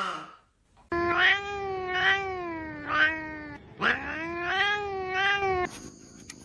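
A cat making long, drawn-out, wavering yowls: two calls, the first lasting nearly three seconds and the second about two, after the tail of an earlier call.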